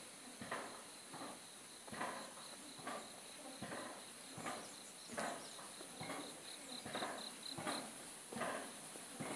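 An axe repeatedly splitting wood on a chopping block, a sharp knock roughly every 0.8 seconds. A steady high insect trill runs behind it and pulses near the end.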